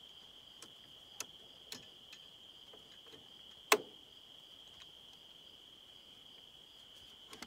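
OTC cable-type flexible hose clamp pliers being squeezed at the handle: a few light clicks, then one sharp click a little under four seconds in as the handle clicks into place, pinching the spring hose clamp open. A steady high-pitched tone runs underneath.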